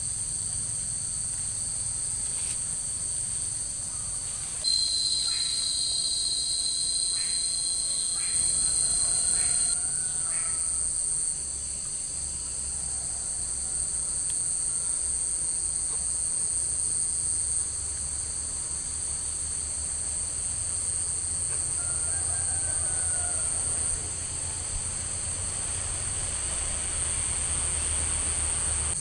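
Steady, shrill chorus of insects holding several high pitches without a break, with a second, slightly lower-pitched insect tone joining from about 5 s to 10 s in. A low rumble runs underneath.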